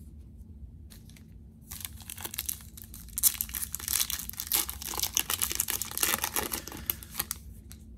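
Foil wrapper of a 2020 Topps Opening Day trading-card pack being torn open and peeled back by hand: a dense crinkling and tearing that starts about two seconds in and stops just before the end.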